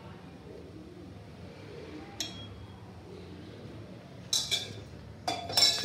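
Steel utensils clinking against each other and the paddu pan as oil is dropped from a small steel vessel into the pan's cups: a handful of sharp clinks, sparse at first and closer together near the end, where they are loudest, over a faint low hum.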